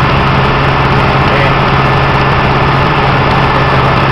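Piper PA-28 light aircraft's piston engine and propeller droning steadily in cruise flight, heard loud from inside the cabin, with a deep even hum under it.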